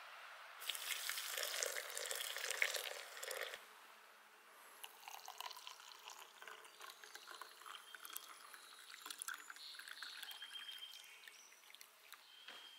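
Hot coffee poured from a camp pot into a stainless steel mug: a faint trickle and splash of liquid. The first few seconds are louder, with clicks and clatter.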